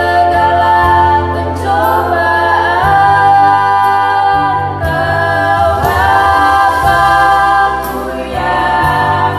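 Group of children singing a Christian praise song in several-part harmony, largely a cappella.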